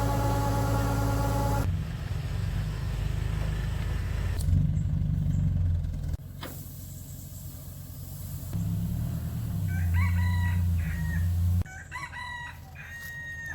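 A rooster crowing twice in the last few seconds, over a steady low rumble like a vehicle engine.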